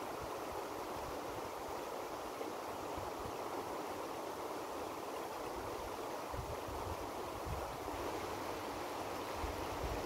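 Steady rushing of a fast-flowing river, with occasional low buffets of wind on the microphone in the second half.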